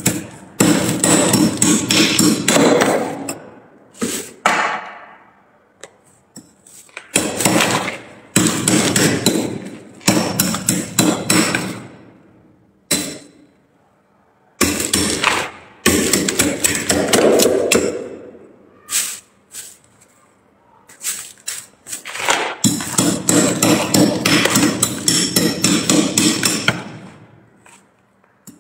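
Metal spoon scraping and chipping thick frost off the inside walls and shelves of a freezer, in bouts of rapid strokes a few seconds long with short pauses between.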